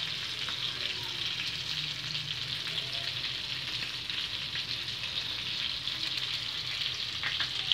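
A steady, even hiss with a faint low hum underneath.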